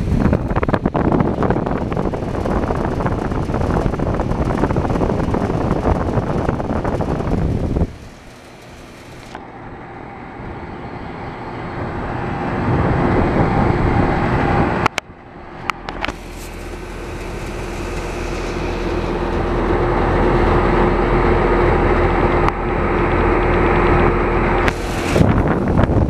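Two Trane XL13i air-conditioner condensing units running: fan air rushes out through the top grille, buffeting on the microphone for the first eight seconds. After that it settles into a steady hum with a low drone, broken briefly about fifteen seconds in.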